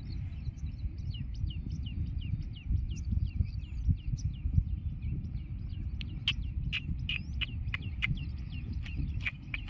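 Wind rumbling steadily on the microphone, with a bird singing a quick run of short falling chirps over it. About six seconds in the chirps give way to a series of sharp clicks.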